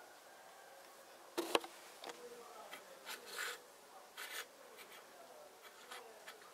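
Small plastic building-block pieces clicking and knocking against each other and the tabletop as they are handled: a scattering of sharp clicks, the loudest about one and a half seconds in.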